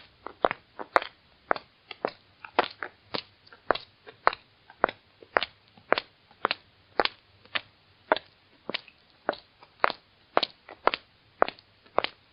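High-heeled shoes clicking on a hard floor in a steady walk, about two steps a second, each heel strike a sharp click.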